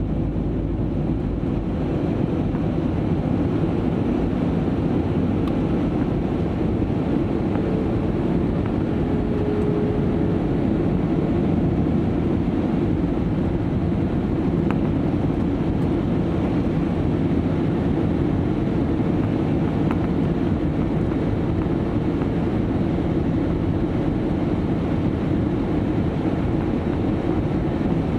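Steady cabin noise of an Airbus A320-family airliner: an even, low rush of engines and airflow heard from inside the passenger cabin.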